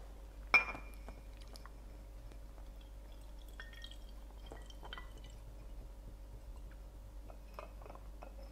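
Water poured into a glass separatory funnel already holding sunflower oil: a single glass clink about half a second in, then faint drips and small glassy ticks.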